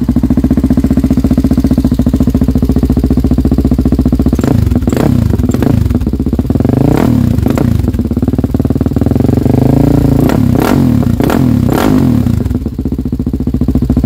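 Honda Tornado single-cylinder four-stroke dirt bike engine, bored out to 410 cc, idling through a Dirt Race aftermarket exhaust. About four seconds in it is revved in a series of quick throttle blips that rise and fall, then it settles back to idle near the end. Its particular loud note comes from the aftermarket exhaust and the CRF carburetor.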